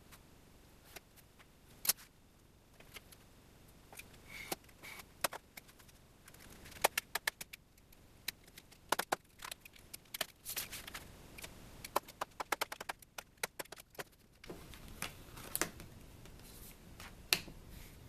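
Thin mylar plastic sheet, a steel ruler and a utility knife handled on a workbench, the knife drawn along the ruler to cut the sheet: a scattered run of light clicks, taps and crackles, thickest in the middle.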